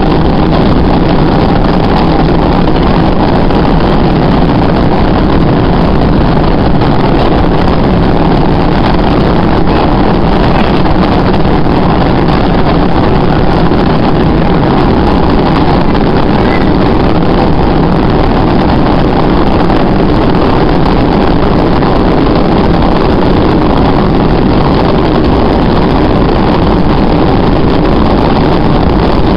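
MBTA Red Line subway train running through a tunnel, heard from inside the car: a loud, steady running noise.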